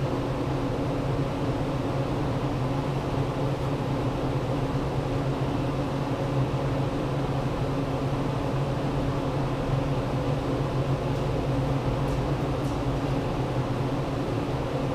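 An electric motor running steadily with a low, even hum.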